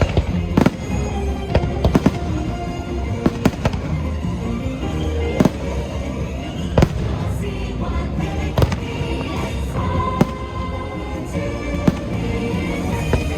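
Fireworks bursting with a sharp bang every second or so, over the fireworks show's musical score.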